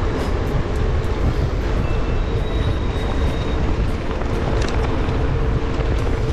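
Steady wind noise on an action camera's microphone mixed with city traffic, recorded while riding a bicycle through streets.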